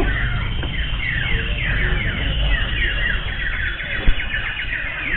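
Common ioras (cipoh) singing: a dense, continuous run of quick, repeated whistled chirps, over a low rumble of background noise.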